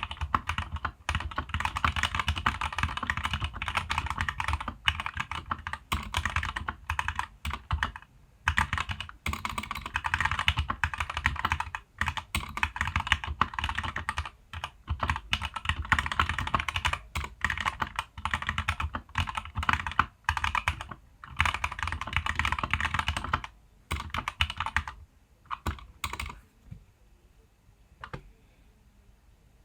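Fast typing on a Keychron K2 V2 mechanical keyboard with stock Gateron Red linear switches, double-shot ABS keycaps and a foam-modded plastic case: keys clicking in quick runs broken by short pauses. The typing stops a few seconds before the end, leaving a single key tap near the end.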